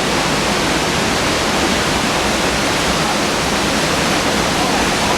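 Waterfall about two stories high, water pouring down fast in a steady, even rush.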